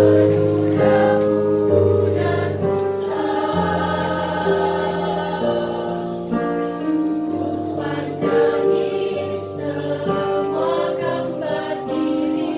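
A female choir singing in harmony, holding long chords that change every second or two.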